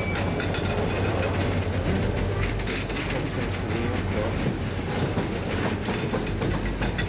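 Freight train cars rolling past close by: a steady rumble of wheels on rail with repeated clicks and clacks as the wheels cross the rail joints.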